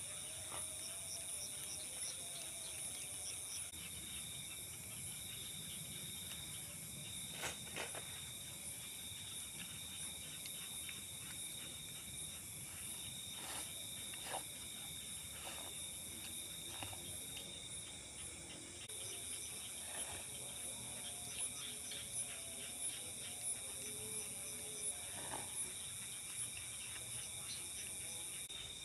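Night insects, crickets, chirring without a break in several high, steady, pulsing bands. A few sharp cracks and clicks stand out against them.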